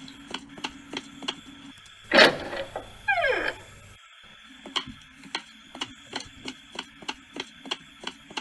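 Footsteps sound effect, paced steps at about three a second over a faint steady hum, with a louder swish about two seconds in and a short falling squeal just after.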